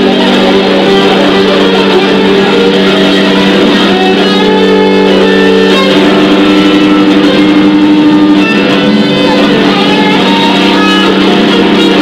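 Loud free-improvised noise music from amplified prepared guitar: a dense, sustained drone of several steady tones, strongest low down, under a rough wash of noise. The upper pitches shift about halfway through.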